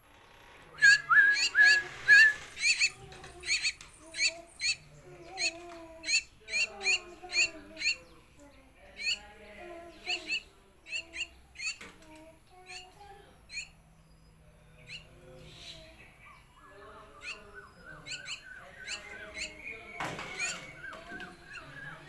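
A Javan myna calling: a fast run of short, sharp chirps and squawks, densest in the first few seconds and thinning out, with lower warbling notes between them and a softer chatter near the end.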